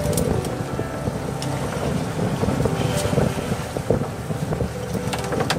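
Small open fishing boat's motor running at sea, with wind buffeting the microphone and water rushing along the hull.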